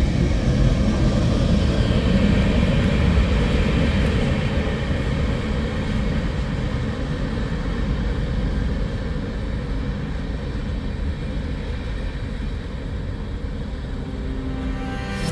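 Long freight train rolling by on the rails: a steady rumble of wheels and cars that slowly fades as it moves off.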